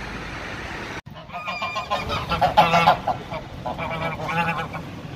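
Geese honking close by: two bouts of loud, repeated nasal honks, the first starting about a second in and the second just before four seconds in.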